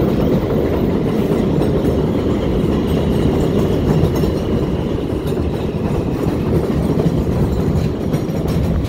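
Steady heavy rumble of wind buffeting the microphone on a moving electric motorcycle.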